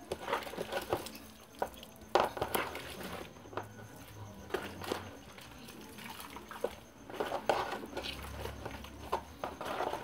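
Fan grille being scrubbed and turned by hand over a basin of soapy water: scattered splashes and drips with light clinks and knocks as the grille is handled.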